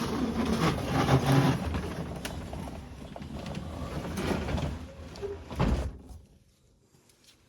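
Manual wooden sectional garage door being run by hand, its steel rollers rattling along the tracks, ending in a heavy thump about five and a half seconds in as it comes to a stop.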